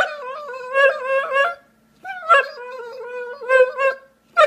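Dog whining and howling in two long wavering calls, with a short yelp at the very end.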